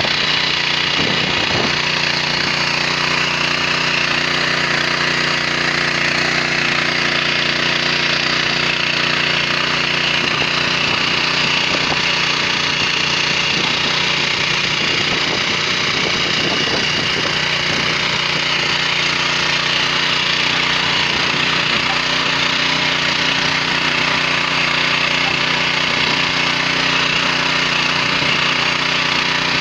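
WEIMA 1000N walk-behind tractor engine running steadily under load, its rotary tiller cutters churning mustard plants into the soil with a rough, rattling clatter over the engine's drone.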